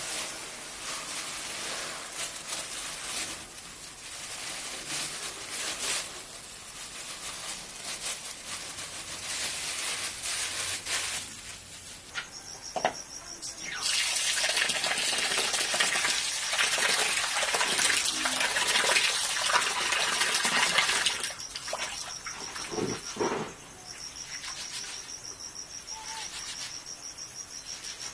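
Crickets chirping in a steady, high, pulsing trill from about halfway through, over a rushing hiss that grows loud for several seconds in the middle.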